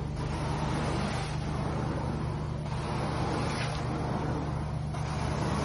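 Hot-water carpet extraction wand sucking water and air out of the carpet: a steady rushing hiss over the low, even drone of the extraction machine, easing briefly every second or so as the wand changes stroke.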